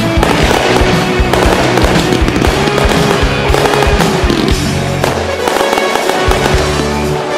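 Music with long held notes, played over a run of irregular sharp bangs and crackles from fireworks going off.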